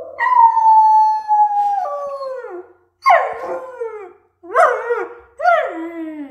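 German Shepherd puppy howling in answer to a recorded wolf howl. It gives one long howl that slides slowly down in pitch, then three shorter howls that each fall away, about a second apart.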